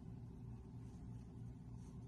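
Faint, steady low engine hum that swells and fades a few times a second, from machinery running at a distance.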